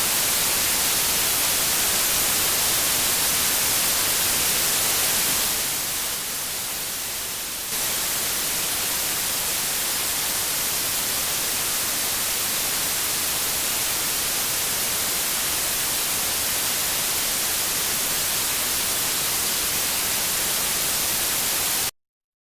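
Steady radio static hiss, the sound of a broadcast signal gone dead. It drops a little in level about six seconds in, comes back about two seconds later, and cuts off abruptly into silence near the end.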